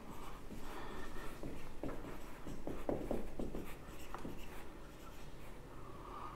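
Felt-tip marker writing on a whiteboard: a run of short pen strokes, busiest between about two and four and a half seconds in.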